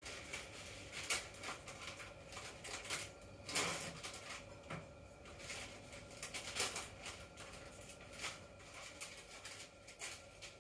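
A cat's claws and paws scratching and scuffing on cardboard as it rolls and plays, irregular scratchy rustles and clicks, a few of them sharper.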